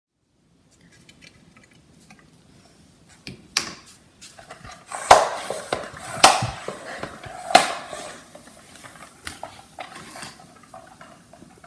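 Irregular clattering knocks of hard objects being handled, a few of them sharp and loud, in a small room.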